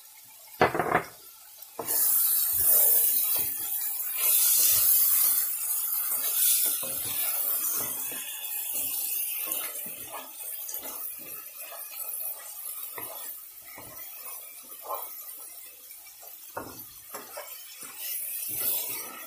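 Mutton chops and tomato sauce frying in a pan, sizzling loudly from about two seconds in and easing off slowly, while a wooden spoon stirs them, scraping and knocking against the pan. A single sharp knock comes just under a second in.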